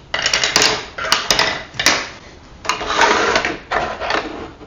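3D-printed plastic router template plates sliding and scraping across a perforated workbench top, with light clacks as they knock together and are set down. The handling comes in two bouts, with a short pause in between.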